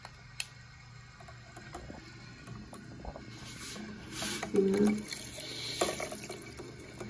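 Electric makeup brush cleaner spinning a brush in a bowl of warm water and cleanser: a steady low motor hum with water swishing in the bowl.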